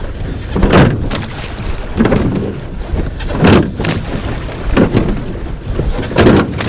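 Surf boat being rowed, with a swish of oars through the water about every second and a half, over wind rumbling on the microphone.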